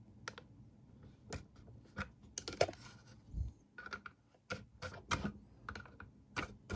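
Irregular light clicks and taps of a thin metal pick working the plastic burr-adjustment ring around the conical burr of a Bodum coffee grinder, the ring being nudged back to its starting position.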